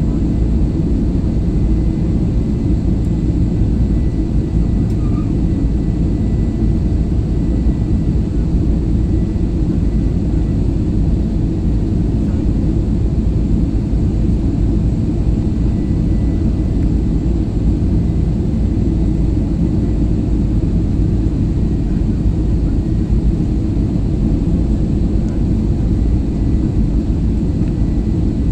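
Cabin noise of an Airbus A320-family jetliner on approach: a steady low roar of the jet engines and airflow, with a faint, steady high whine above it.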